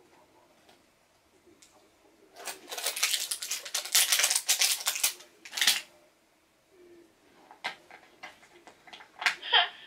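Rasping, clicking handling noise for about three seconds as a toy baby doll is worked on by hand, with a few scattered clicks after. Near the end the doll's electronic baby voice starts up, a sign that the doll works.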